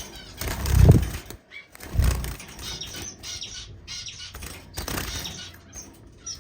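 Tricolor munias fluttering and flapping in their cage, with two louder thumps about one and two seconds in, and small chirps from the birds. The bird is agitated and flying wildly.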